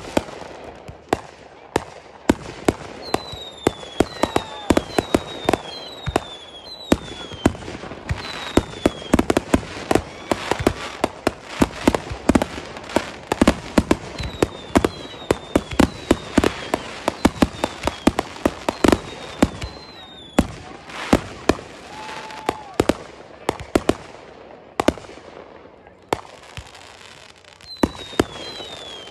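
Consumer firework display: aerial shells and comets going off in quick succession with many sharp bangs, overlaid by short high whistles that fall in pitch. The bangs thin out for a few seconds near the end before picking up again.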